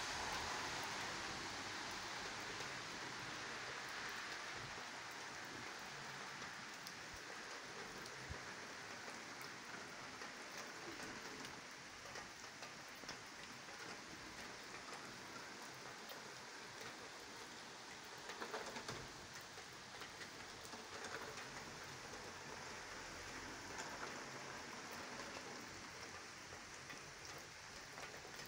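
Steady rain falling on paved ground, a fine hiss with scattered drop ticks, heaviest in the first few seconds and then easing a little.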